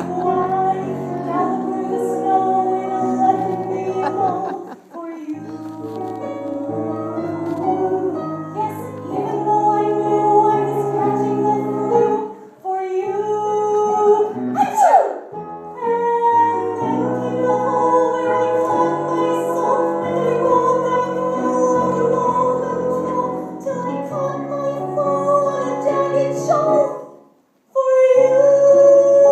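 Musical-theatre song: instrumental accompaniment with a woman's singing voice. The music breaks off for a moment near the end, then comes back in.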